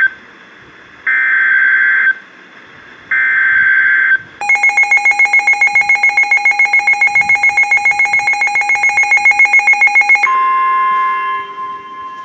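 Emergency Alert System warning signal. It begins with the screeching end of the SAME digital header, two more one-second data bursts, then a buzzy electronic alert tone pulsing rapidly for about six seconds. About ten seconds in, that gives way to a steady single-pitch weather radio warning tone.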